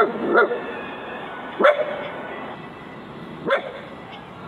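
A dog barking: four short, single barks, two close together at the start, then one a little later and a last one near the end.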